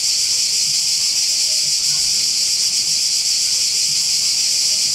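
Dense chorus of cicadas buzzing: a loud, steady, high-pitched shrill.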